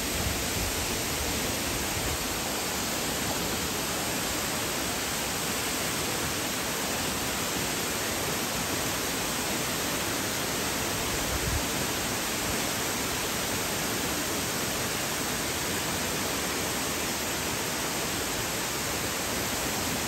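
Steady rush of water from Mantayupan Falls pouring into its pool: an even, unbroken hiss of falling water.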